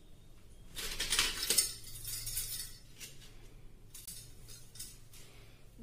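Gold bangles clinking against each other and against the tray as they are picked up and handled, with a cluster of jingling about a second in, then a few lighter clinks.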